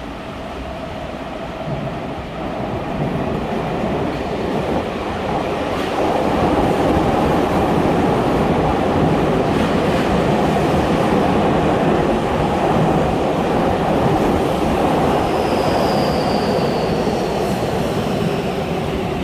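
Tokyu 5050 series 4000-subseries ten-car train running through an underground subway station without stopping. Its running noise builds over the first few seconds, then stays loud and steady as the cars go past. A brief high wheel squeal comes near the end.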